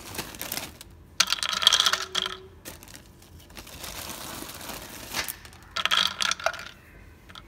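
Dry pet-food kibble clattering into the hard plastic hopper of an electronic treat ball as it is poured in by hand. It comes in rattling bursts, loudest about a second in and again near the end, with a lighter rustle of pellets between them.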